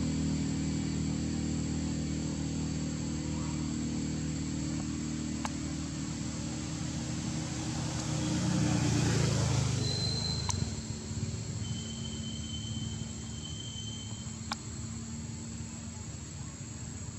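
Low engine drone of a passing motor vehicle, swelling to its loudest about nine seconds in and then fading to a quieter hum, over a steady faint high insect buzz.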